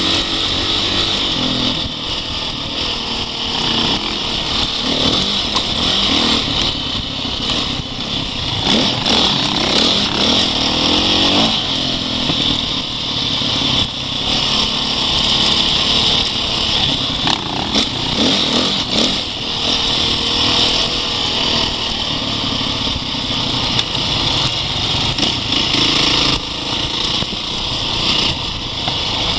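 Off-road dirt bike engine running under load on a rough trail, its pitch rising and falling with the throttle, most noticeably through the middle. A steady hiss sits over it throughout.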